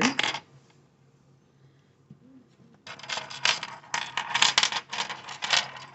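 Metal curtain ring clips clinking and clicking against each other as they are handled and clipped onto a cotton towel. It is a quick, uneven run of small metallic clicks that starts about three seconds in.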